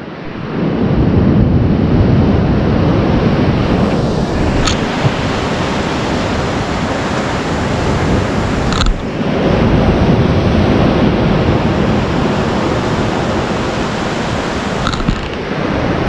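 Ocean surf breaking and washing up a sandy beach, a steady rushing noise, mixed with wind buffeting the microphone.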